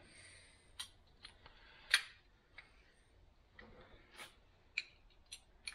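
Scattered small clicks and ticks of a utility knife being handled. The loudest click comes about two seconds in.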